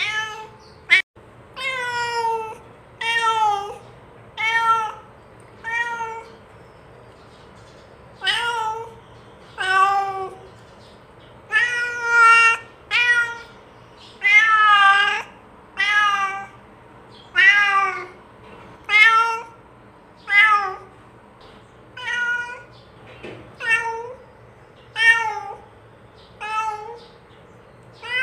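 Domestic cat meowing over and over, short separate meows about one to two seconds apart, calling its companion to come and eat. A single sharp click sounds about a second in.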